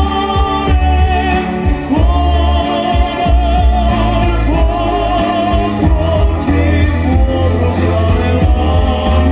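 Live music with a singer, amplified through a concert stage's loudspeakers: a wavering, ornamented vocal melody over a heavy, pulsing bass.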